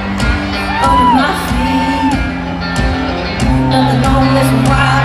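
Live country-rock band playing loudly with a woman singing lead into a microphone, heard through arena amplification; drum hits and a held bass note sit under the vocal.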